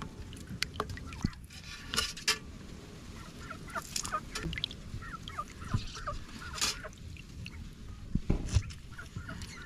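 Water splashing and dripping in a metal basin as lemons are cut and squeezed by hand, with short sharp knocks and splashes now and then. Domestic fowl call in the background.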